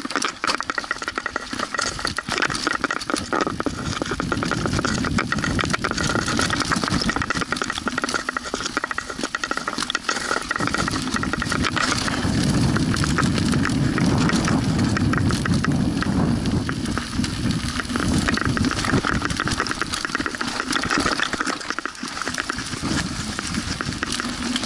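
Mountain bike rolling fast down a dirt forest trail: tyres running over dirt, rocks and dry leaves, and the bike rattling over the bumps. Wind rumbles on the camera microphone, heaviest about halfway.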